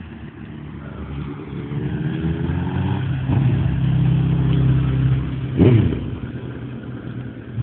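2003 Suzuki GSX-R 750's inline-four engine through a full Arata exhaust, idling and then revved: the pitch climbs over a couple of seconds and holds, falls, then a sharp throttle blip about five and a half seconds in before dropping back to idle. The exhaust is loud.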